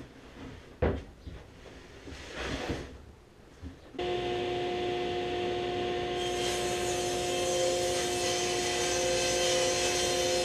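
A sheet of plywood knocked and slid onto a table saw, with one sharp thump about a second in. About four seconds in the table saw starts running with a steady hum, and a couple of seconds later its blade starts ripping the plywood, adding a steady hiss.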